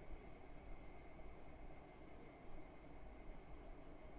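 Faint, steady insect chirping, a high pulse repeated about five times a second, over a low background hum.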